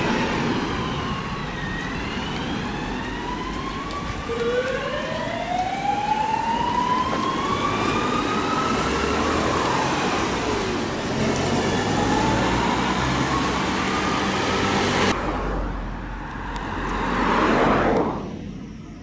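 Sirens on fire service vehicles wailing, several at once, their long rising and falling sweeps overlapping as the vehicles pass. About fifteen seconds in the sirens cut off abruptly, and a rushing road noise swells and then drops away.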